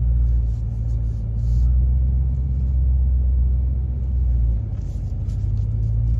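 2024 Ram Power Wagon's 6.4-litre HEMI V8 running at low revs with a deep, steady rumble, heard from inside the cab as the truck crawls slowly over a rocky, off-camber trail section.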